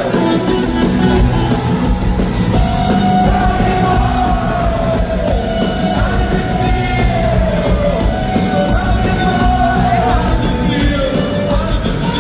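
Rock band playing live in a large hall, heard from within the crowd: loud electric guitars over a dense low end. A few seconds in, the singer holds one long wavering yelled note for several seconds.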